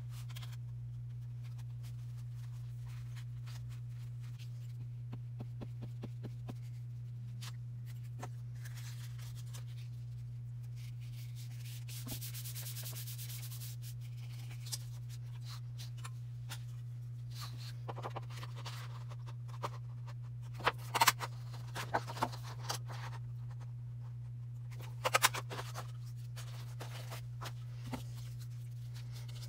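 Paper being handled and rubbed flat on a craft table: a soft rubbing hiss partway through, then scattered taps and clicks, in two clusters near the end, over a steady low hum.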